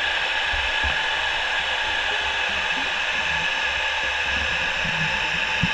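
Steady hiss of underwater ambience picked up by a dive camera, with a few faint low thumps.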